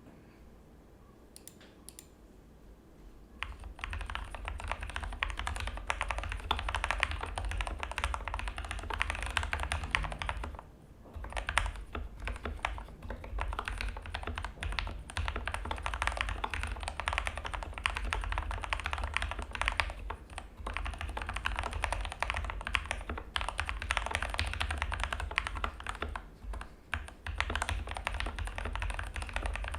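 Typing on an Anne Pro 2 mechanical keyboard with lubed Gateron Pro Milky Yellow linear switches, pudding keycaps, a steel plate and foam-filled case: a fast, continuous run of keystrokes. A couple of single key clicks come first, the steady typing starts a few seconds in, and it pauses briefly about a third of the way through.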